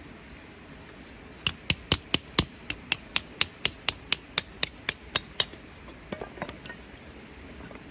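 A quick run of about seventeen sharp knocks, roughly four a second, with a faint high ring, followed by a few softer knocks near the end.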